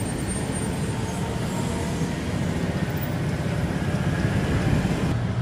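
Street traffic: scooter and car engines running close by, a steady rumble with no single event standing out.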